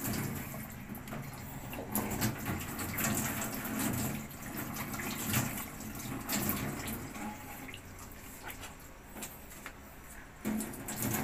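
Tap water running into a stainless steel sink with splashing as squid is rinsed under the stream by hand. The water sound grows quieter about two-thirds of the way through.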